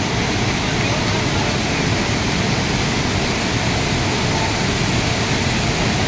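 Steady rushing of white water as a wide river pours over a rocky cascade of rapids.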